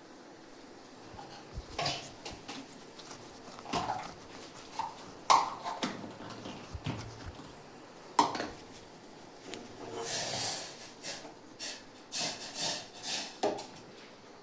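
Kitchen utensils and dishes being handled: scattered sharp knocks and clinks, then a quick run of short, hissy sounds near the end.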